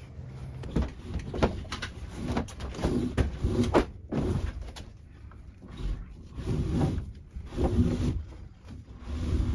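Rope being hauled hand over hand through the pulleys of a RAD Sportz kayak hoist as a kayak is raised: a series of short rubbing, running pulls, roughly one a second, with small knocks between them.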